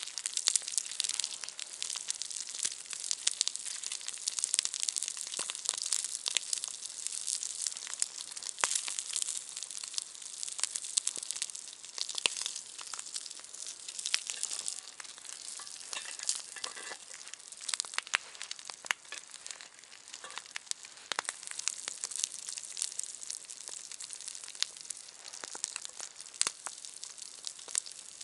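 Steady, dense crackling and sizzling from a small wood campfire with a pan of food cooking on it.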